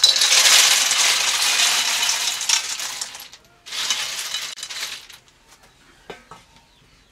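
Water snails in their shells poured from a steel plate into a hot metal wok, the shells clattering and rattling against the pan. It comes in two pours: a long one of about three seconds, then a shorter one after a brief pause, followed by a few light clinks.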